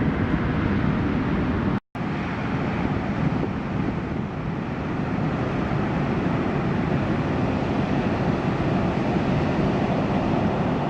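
Steady rush of ocean surf and wind buffeting the microphone, with a brief dropout to silence about two seconds in.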